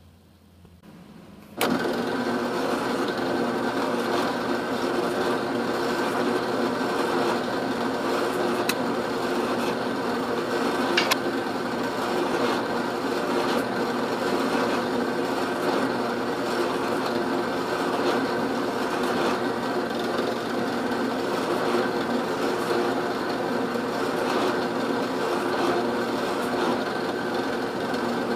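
A drill press motor starts about two seconds in and runs steadily with an even hum while holes are drilled through Baltic birch plywood, with a few light clicks.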